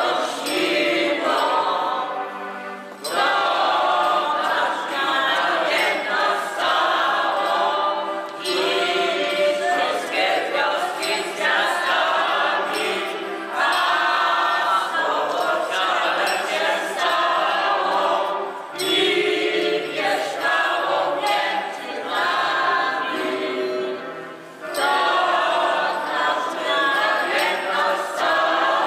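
A choir singing a Polish Christmas carol (kolęda), in sung phrases of about five seconds with short breaks for breath between them.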